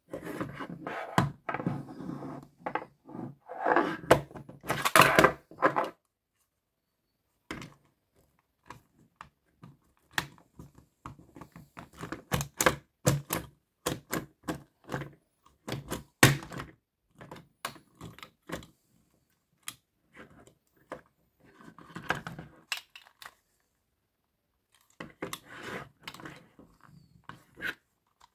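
Plastic joints and panels of an Optimus Primal transforming action figure clicking and rattling as it is converted by hand from gorilla to robot mode. A dense run of rattling clicks comes first, then many sharp separate clicks after a short pause.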